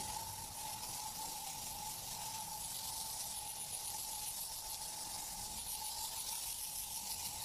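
Aerosol air freshener can spraying in a long, steady hiss, over a faint steady hum.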